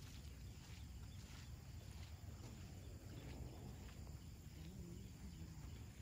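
Faint wind rumbling on the microphone outdoors, with soft taps about every half second.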